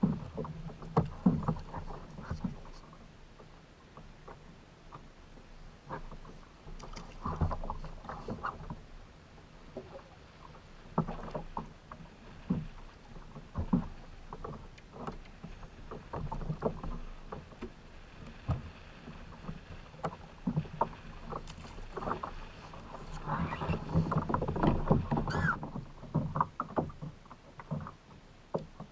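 Irregular knocks and handling noises on a fishing kayak, busiest a few seconds before the end.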